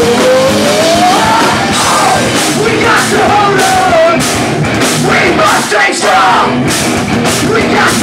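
Pop-punk band playing loud and live: distorted electric guitars and a steady drum beat, with a singer's voice holding a note that slides upward in the first second or so, then going on singing.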